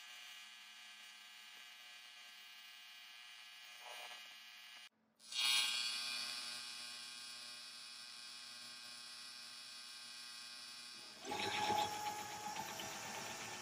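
AC TIG welding arc buzzing steadily while aluminum angle is welded, in two runs with a short break about five seconds in. Near the end a cordless impact driver starts running, louder than the weld.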